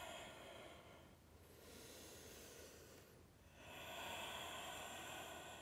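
Faint, slow breathing of a woman holding a forward fold: a long breath trailing off at the start, a quieter stretch, then another long breath from a little past the middle.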